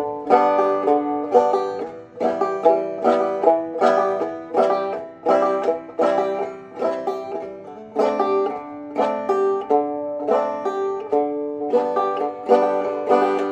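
Banjo played clawhammer style: a steady, rhythmic run of sharply plucked notes and brushed strums, each ringing briefly, with no singing.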